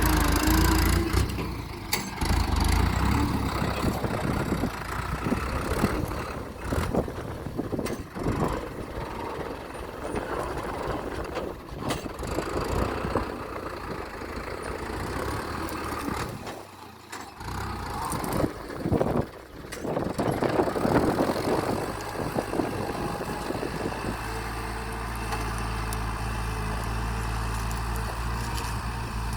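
New Holland TT75 tractor's diesel engine running, unsteady and mixed with irregular knocks and rattles for most of the time, then settling into a steady even hum near the end.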